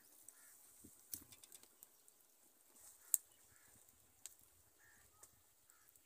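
Faint, repeated short calls of farmyard fowl, roughly one a second and irregular. Among them are a few sharp clicks from raw chicken pieces being handled into a steel bowl, the loudest about three seconds in.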